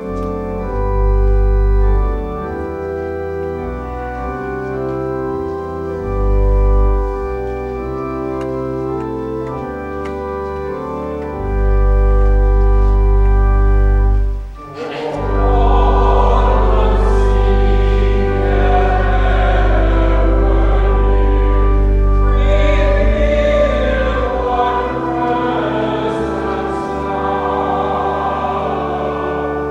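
Organ playing sustained chords with deep pedal bass notes. About halfway through it pauses briefly, then voices join in singing with the organ.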